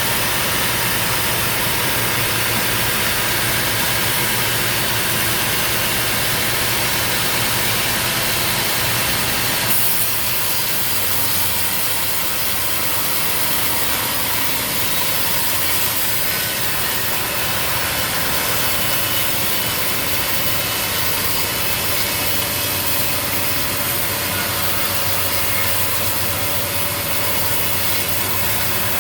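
Sawmill machinery running steadily: an engine hum under a dense, even mechanical noise, which eases slightly in the low end after a brief click about ten seconds in.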